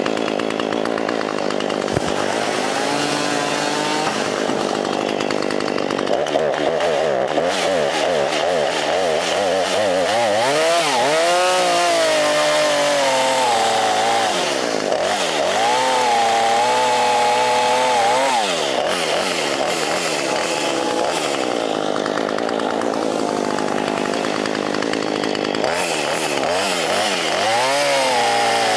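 Two-stroke gas chainsaws running and cutting tree limbs, their engine pitch repeatedly rising and falling as the throttle is opened and the chain bites into the wood.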